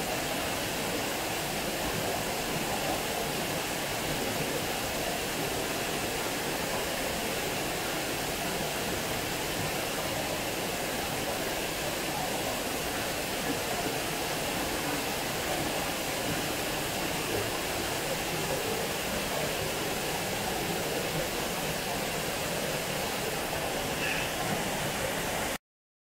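Water falling over a small concrete weir into a stone-walled channel, a steady rushing that cuts off abruptly near the end.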